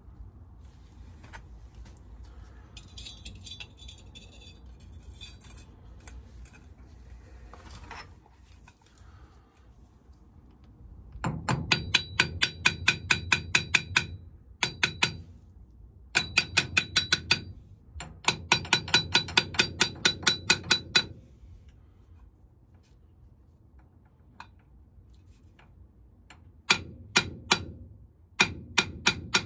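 A hammer taps the steel installation cup to drive an SKF Speedi Sleeve, an interference-fit wear sleeve, onto the worn seal surface of a Daimler Ferret wheel-hub shaft. The ringing metallic taps come in quick runs of about five a second, starting about eleven seconds in and stopping and resuming several times.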